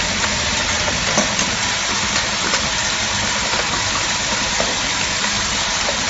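High-speed packing machine for 24/6 staples running: a steady mechanical hiss with a few light clicks from its moving parts.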